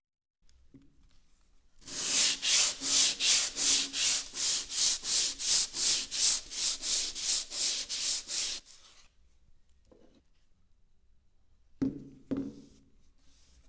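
Hand sanding dried wood filler on a wooden door panel with a sheet of P120 sandpaper under the palm: quick, even back-and-forth strokes, about four a second, for roughly seven seconds, then they stop. Two short knocks follow near the end.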